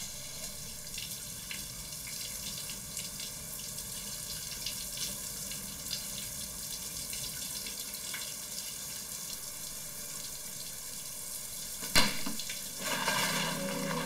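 Shower running, a steady hiss of water spray. About twelve seconds in comes one sudden sharp hit, and sustained music tones begin near the end.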